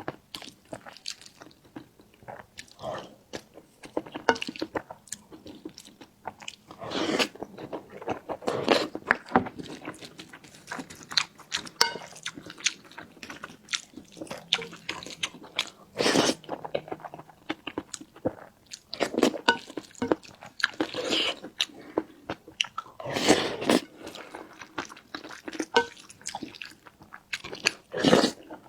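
A person eating close to the microphone: irregular chewing and bites, with many sharp wet mouth clicks.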